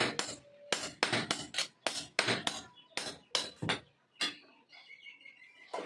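Hand hammer striking steel on an anvil in a quick run of ringing blows, about four or five a second, stopping about four seconds in with one last blow just after.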